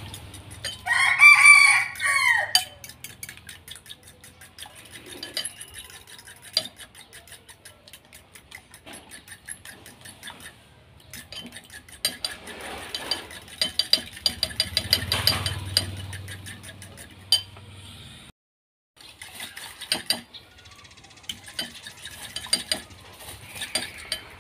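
A metal spoon beating eggs in a ceramic bowl: rapid clicking and scraping against the bowl. A rooster crows once about a second in, the loudest sound.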